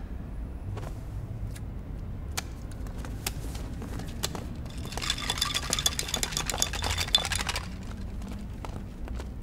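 Scattered sharp clicks, then a dense rapid clatter of small hard objects lasting about two and a half seconds, with a faint ringing.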